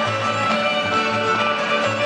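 Mexican folk dance music for a Nayarit folklórico number. A bass plays short repeated notes under a band of pitched instruments.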